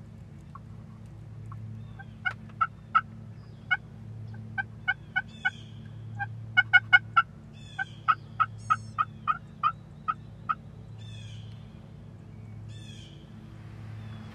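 Wild turkeys calling: a long run of short, sharp notes, about three a second, starting about two seconds in and stopping about ten seconds in. Songbirds chirp more faintly in the background.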